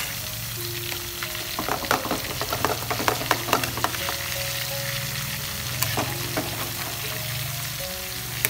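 Pieces of lemongrass-marinated field rat frying in oil in a nonstick pan, sizzling steadily. A metal spatula scrapes and clicks against the pan as the browned pieces are turned, mostly between about one and a half and four seconds in.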